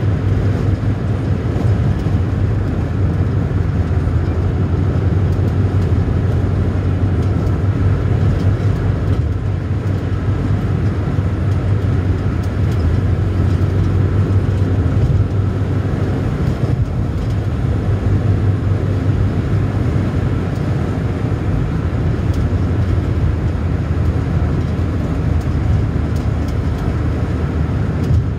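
Steady driving noise of a car on the move, heard from inside the cabin: a constant low drone of engine and tyre noise with no changes.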